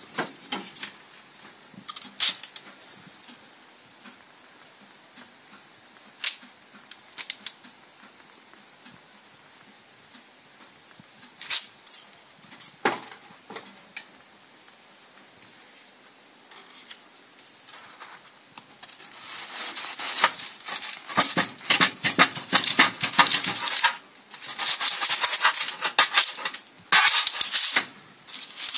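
Baking parchment crinkling and rustling as it is handled, with scattered sharp clicks and knocks at first. About two-thirds of the way in, the rustling turns loud and dense, with a couple of short breaks.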